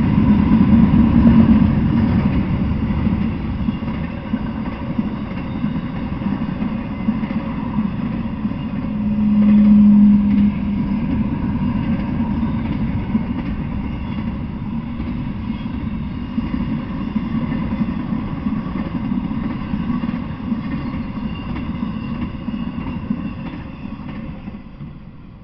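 Double-stack intermodal freight train rolling past, its well cars giving a steady rumble and clatter of wheels on rails. A steady low tone swells over it briefly about nine to eleven seconds in, and the rumble fades near the end as the last car goes by.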